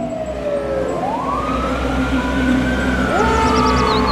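Fire engine siren wailing, its pitch sliding down, then rising and slowly falling again, over a low engine rumble. A second siren begins to rise about three seconds in.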